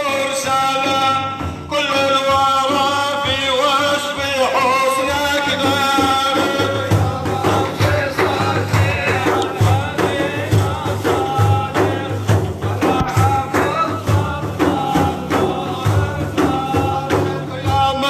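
Middle Eastern devotional music: a held, wavering melodic line, with a regular drum beat joining about seven seconds in.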